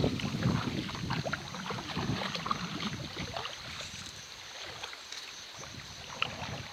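River water splashing and sloshing around legs wading through the shallows, louder for the first few seconds and then easing off, with a single sharp click near the end.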